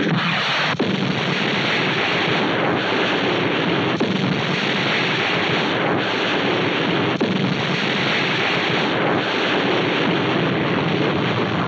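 A run of film explosion sound effects: a continuous, dense blast noise renewed by a fresh explosion every second or two, with no break between them.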